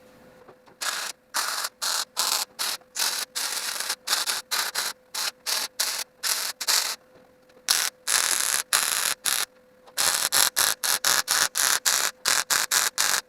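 MIG welder tack- and stitch-welding thin sheet-steel body and floor panels: short crackling bursts of the arc, two or three a second, with two brief pauses between runs.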